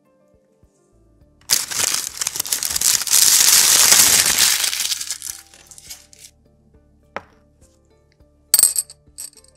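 Brown kraft paper crumpled and rustled loudly for a few seconds as it is pulled off a glass petri dish. Near the end comes a sharp clink on glass and a lighter second one.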